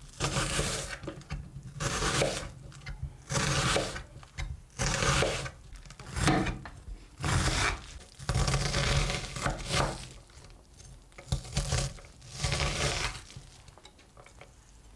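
Chef's knife slicing and dicing a raw onion on a wooden cutting board: crisp crunching strokes in bursts of half a second to a second, with short pauses between them. The cutting stops a couple of seconds before the end.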